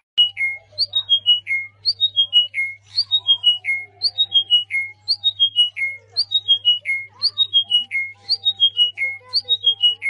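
A small songbird singing the same quick phrase over and over, a run of about six clear whistled notes stepping down in pitch, about once a second. A steady low hum runs underneath.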